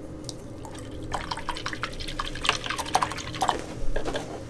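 A string of small wet clicks and plinks from a paintbrush working wet acrylic paint and water, thickest in the second half.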